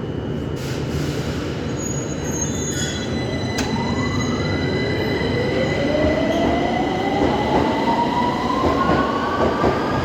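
Victoria line 2009 Stock Underground train pulling away from the platform, its traction motors whining upward in pitch as it accelerates over a steady rumble of wheels on rail. Quick clicks of the wheels over the rail joints come in near the end.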